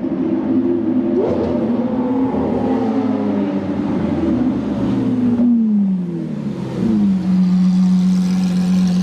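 A high-performance car engine running steadily, with a short throttle blip about a second in. The revs then fall away past the middle and settle into a steady lower drone.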